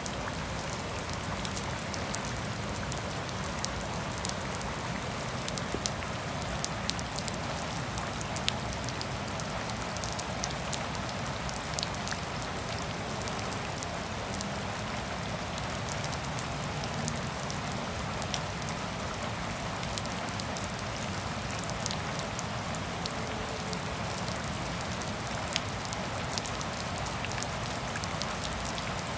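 Gentle rain falling steadily on grass and a puddled pavement: an even hiss dotted with many small ticks of individual drops.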